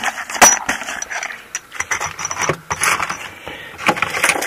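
Steel drill bits and small hand tools clinking and rattling in a metal box as they are handled: an irregular run of sharp metallic clicks.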